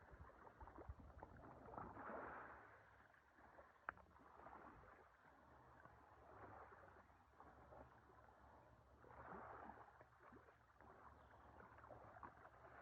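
Faint sea water lapping in slow swells every few seconds, with a single sharp click about four seconds in.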